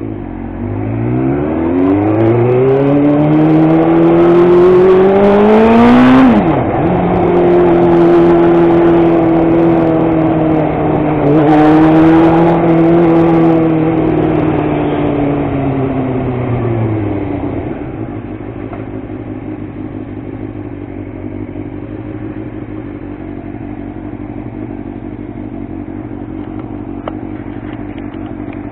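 Suzuki sport motorcycle engine pulling away and revving up, with a sharp drop in pitch from a gear change about six seconds in. It holds a steady speed, falls in pitch as the bike slows, and settles to idle for the last ten seconds or so.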